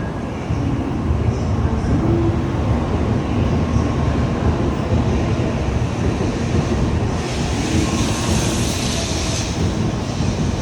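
Shinkansen train running alongside the platform with a steady low rumble, and a hiss rising over it for about two seconds near the end.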